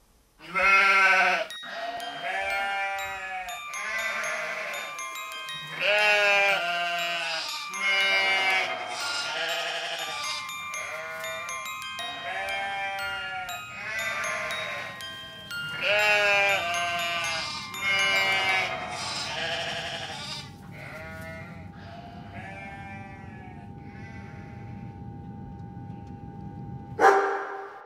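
A long series of animal calls, each about a second long, over music. The calls give way about 20 s in to a steady held tone, and a sudden loud sound comes just before the end.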